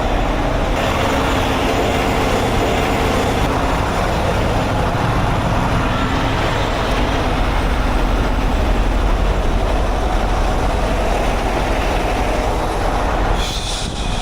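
Heavy diesel truck engine running steadily close by.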